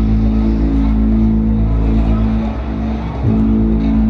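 Live ambient electronic music: a loud, deep drone of sustained low synthesizer tones. It thins briefly and swells back in with a new attack about three seconds in.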